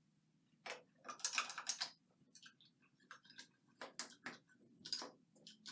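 Faint, irregular light clicks and taps of small hard objects being handled, about a dozen scattered strokes.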